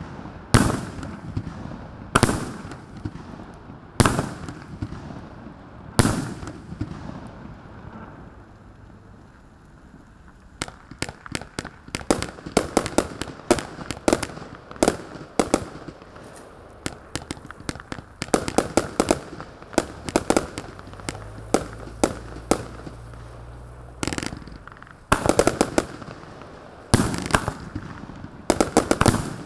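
A 54-shot, 0.8-inch fan-shaped fireworks cake firing, its shots bursting in sharp bangs. The first bangs come singly about two seconds apart; after a short lull come rapid strings of crackling shots, then a few heavier bangs near the end.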